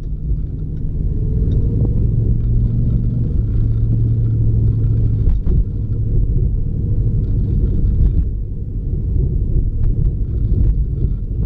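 Low road and engine rumble of a car in motion, heard from inside the cabin. A steady low engine drone stands out for a few seconds in the middle, then drops back into the rumble.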